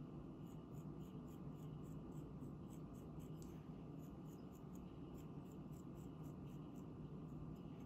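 Faint, quick scratching of a hand tool being drawn into a soft clay slab, about four short strokes a second, over a low steady hum.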